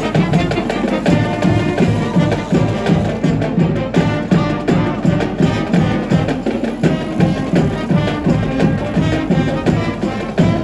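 Background music with percussion and a steady beat.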